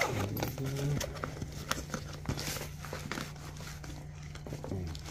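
Zippered nylon carrying case being handled and opened by hand: rustling of the fabric with irregular small clicks and knocks.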